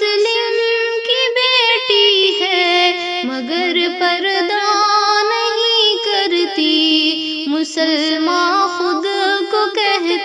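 A woman's voice singing the refrain of an Urdu devotional nazam in a slow, ornamented melody, with a held lower note sounding beneath it.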